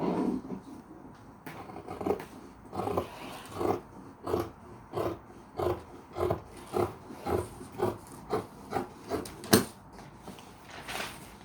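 Fabric shears cutting through cloth on a table: a run of about fifteen short crunching snips, roughly two a second and quickening a little, ending with a sharper snap about nine and a half seconds in. A rustle of handled fabric opens the stretch.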